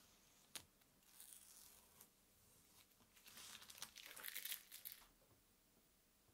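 Masking tape being peeled off wooden boards and brass plates and crinkled up: faint crackling and tearing, loudest for a couple of seconds in the middle, after a single click about half a second in.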